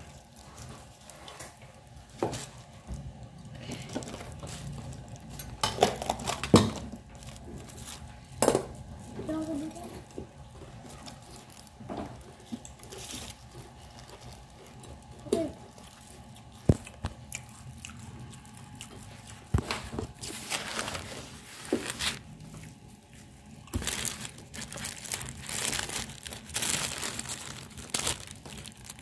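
Paper food packaging and a paper sandwich wrapper crinkling and rustling as they are handled and opened, with scattered sharp clicks and knocks. The crinkling is heaviest in the last third.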